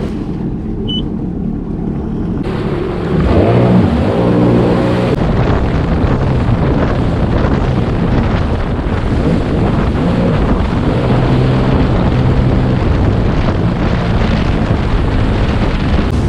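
Sea-Doo Spark Trixx personal watercraft engine revving up about three seconds in, then running steadily at speed. Wind on the microphone and water rushing along the hull sound with it.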